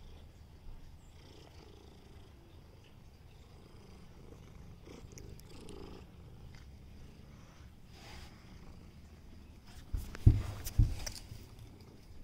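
Black domestic cat purring steadily while being stroked and scratched behind the ear. Two loud thumps come close together near the end.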